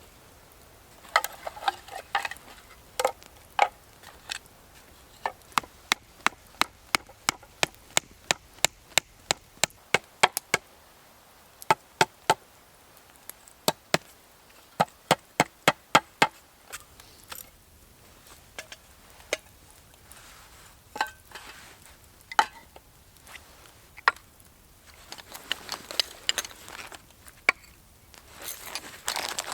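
A series of sharp wooden knocks, something striking wood over and over, coming quickly at two or three a second for about ten seconds in the middle, with fewer and softer knocks around them.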